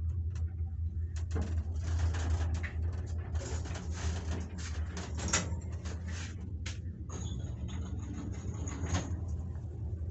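1976 KMZ passenger lift car travelling in its shaft: a steady low hum under scraping, knocks and clicks, with a high thin squeal about seven seconds in from the guide shoes rubbing on the guide rails.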